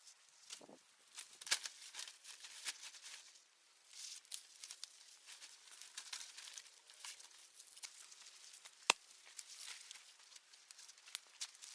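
Irregular crackling and rustling of dry wood and leaves: many small sharp clicks and snaps, with one louder snap about nine seconds in.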